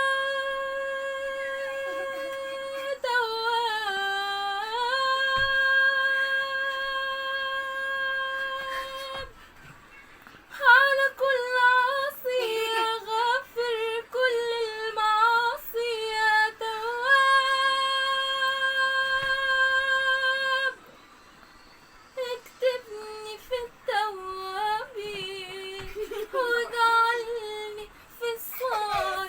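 A female voice singing an Arabic Islamic devotional song (inshad) unaccompanied, holding long notes and winding through ornamented melismatic runs. There are short breaks for breath about nine seconds in and again about twenty-one seconds in.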